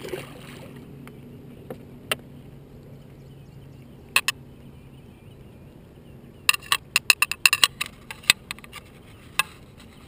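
Hooked sand bass splashing at the surface as it is reeled to the boat, followed by scattered sharp clicks and knocks. About two thirds of the way in they come as a dense irregular run.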